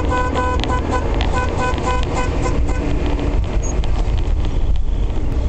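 Vehicle horn sounding a rapid run of short toots, about four a second, that stops about two and a half seconds in. Under it, the steady low rumble of engine and road noise in traffic.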